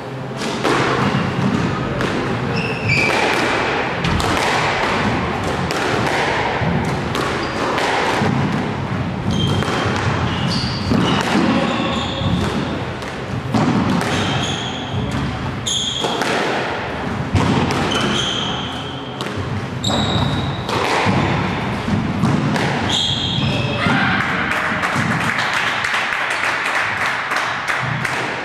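Squash ball being hit back and forth in a rally: sharp cracks of the ball off the rackets and the front wall at irregular intervals, with short high squeaks of players' shoes on the court floor in between.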